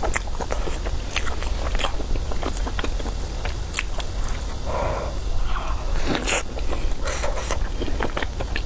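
Close-miked eating of cakes and desserts: bites and chewing with many short, wet, sticky mouth clicks and smacks.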